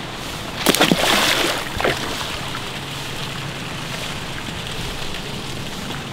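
A snake thrown into a pond splashes into the water about a second in, with a short flurry of splashing, then a smaller splash.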